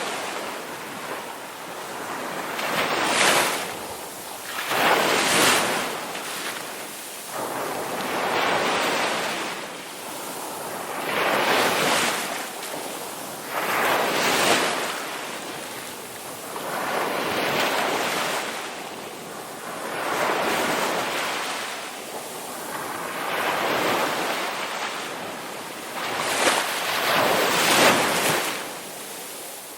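Ocean waves crashing one after another, each one swelling to a rush and fading away, about every three seconds.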